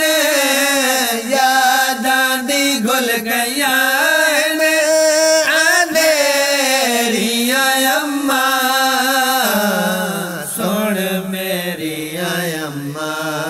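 A solo voice chanting a Saraiki/Punjabi elegy for a dead mother (a nazam) in long drawn-out notes with no clear words. The melody bends slowly and drops lower about ten seconds in.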